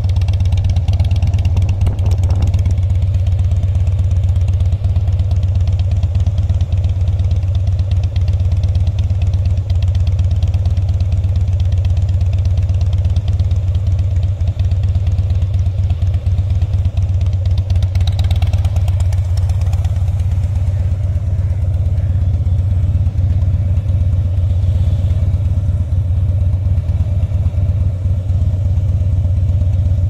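2007 Harley-Davidson Softail Custom's Twin Cam 96B V-twin idling steadily, with no revving.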